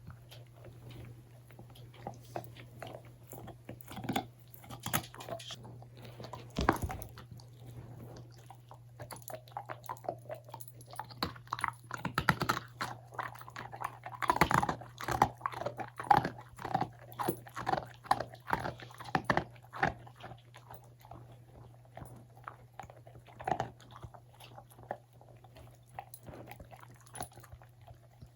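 Siberian husky chewing and crunching a dog cookie: irregular crunches and bites, busiest around the middle, over a faint steady low hum.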